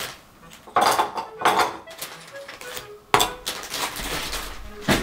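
Glass bottles and a drinking glass clinking and knocking on a table as the next whisky is handled: four sharp clinks spread across the few seconds.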